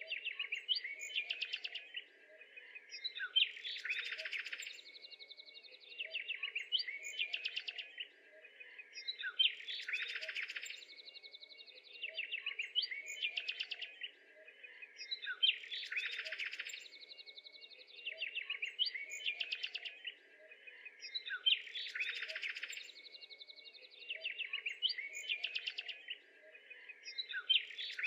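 Small songbirds chirping and trilling, with the same few seconds of calls repeating about every six seconds over a faint steady hum.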